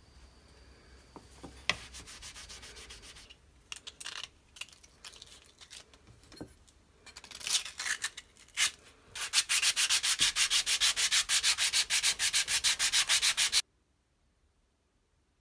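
Hand sanding of a metal knife part: scattered scrapes and clicks, then fast, even back-and-forth strokes, about nine a second, starting about nine seconds in and cutting off suddenly near the end.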